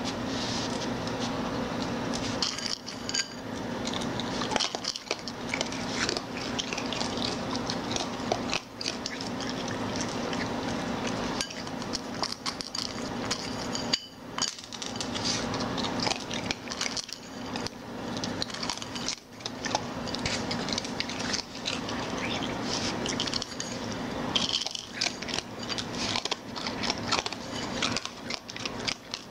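A raccoon handling food in a bowl and moving about on a hard floor: a continuous run of small clicks, taps and scrapes from its paws and claws, over a low steady hum.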